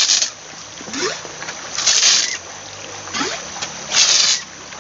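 Bamboo water gun squirting a jet of water three times, about two seconds apart, each a short hissing spray. Between spurts there are short rising squeaks as the plunger is drawn back through the bamboo tube to refill.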